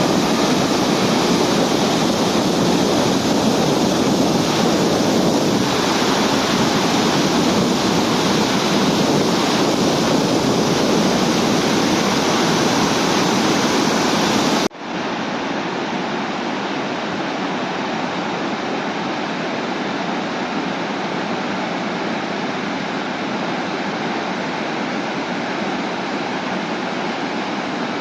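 Waterfall: a steady, loud rush of falling water. About halfway through it cuts off sharply and resumes quieter and duller.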